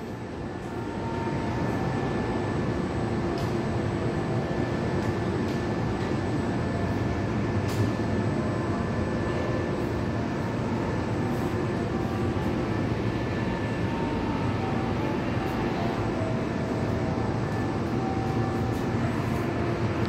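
Church bells ringing at a distance, their tones faint and coming and going over a steady city rumble.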